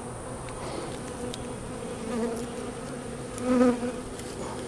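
Honeybees buzzing around an opened hive, a steady hum that swells louder twice as bees pass close by.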